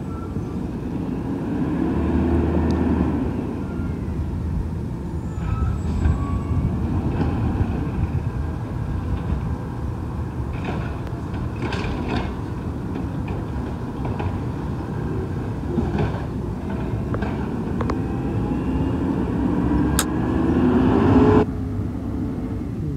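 Garbage truck's diesel engine running and revving as it collects curbside carts, with scattered knocks and bangs from the carts. Near the end the engine revs up in a rising pitch, then breaks off abruptly.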